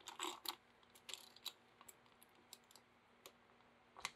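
Faint, irregular metallic clicks from a ratchet and hex bit socket as the loosened oil drain plug is turned out by hand.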